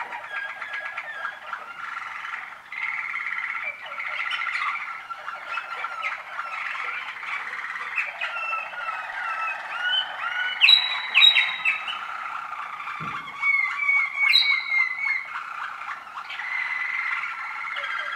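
Waterslager song canaries, first-year birds, singing continuously: rapid rolling trills and bubbling tours, with a few louder, higher notes about ten to eleven seconds in and again near fourteen and a half.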